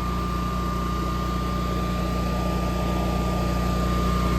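Generac 22 kW Guardian standby generator's natural-gas V-twin engine running steadily in manual warm-up, with no load transferred yet, and a steady thin whine above the engine note.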